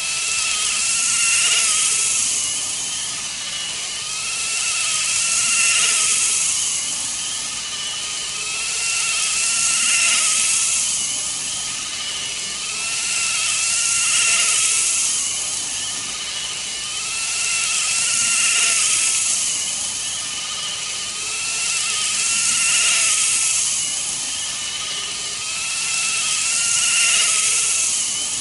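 N-gauge model train running on track, powered by a KATO motor unit: a high motor whine and the rolling hiss of small wheels on rail. The sound swells and fades regularly, about every four seconds, as the train circles the layout.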